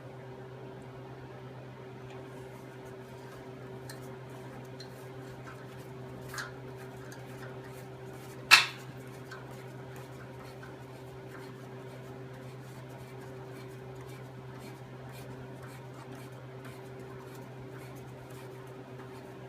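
Light metal clicks and handling of tools and parts on a workbench, with one sharp metallic clank about eight and a half seconds in and a smaller knock a couple of seconds before it, over a steady low hum.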